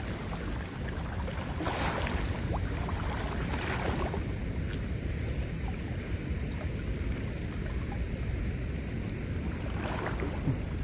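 Steady low rushing of water flowing hard through a spillway.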